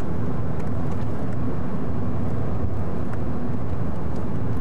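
Steady low engine and road rumble of a car driving along a tarmac road.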